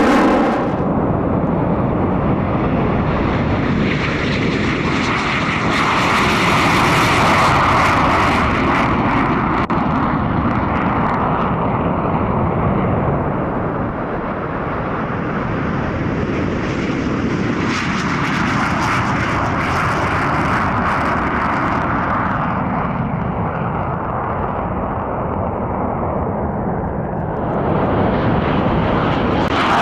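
Military fighter jet engines (Swiss F/A-18 Hornets and F-5 Tigers) running loud and continuous. The sound swells twice, about six and eighteen seconds in, and each time falls in pitch as a jet goes past.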